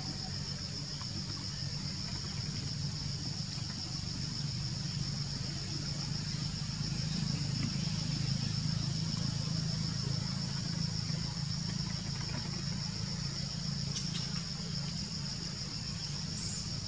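Steady high-pitched drone of an insect chorus, with a low steady hum beneath it and two brief high chirps near the end.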